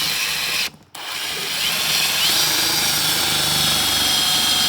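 Power drill driving a self-tapping screw into a cast metal part without a pilot hole. It runs in a short burst, stops briefly, then runs on steadily with a high whine.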